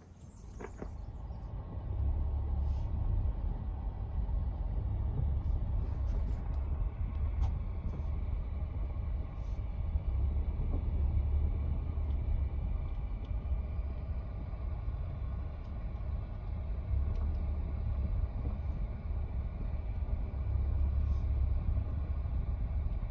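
Steady low rumble of a car driving, heard from inside the cabin, with a few faint ticks and clicks.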